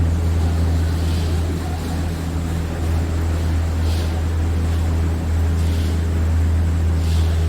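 Steady low drone of the Kuranda Skyrail gondola cableway, heard while riding in a cabin, with a few faint hissing swells over it.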